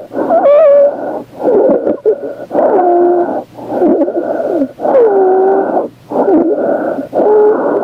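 Stridor from a child with upper airway obstruction, recorded at the mouth: a quick run of about seven noisy breaths, each carrying a pitched tone that bends in pitch. It is the sign of an obstructed upper airway.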